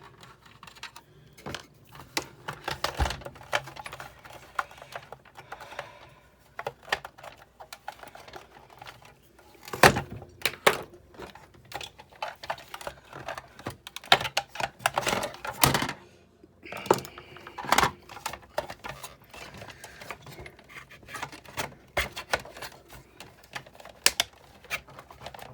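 Irregular clicks, taps and clatter of plastic and metal parts being handled and fitted together while a Big Shot die-cutting machine is reassembled by hand.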